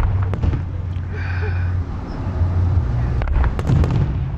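Fireworks display going off: low rumbling booms of aerial shells bursting, with sharp cracks near the start and a cluster of cracks about three and a half seconds in.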